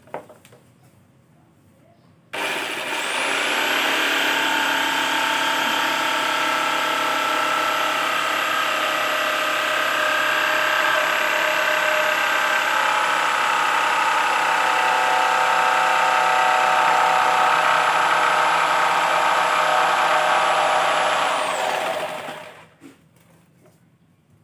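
Electric jigsaw cutting acrylic sheet: the motor switches on about two seconds in with a rising whine, runs steadily under load through the cut, and winds down near the end.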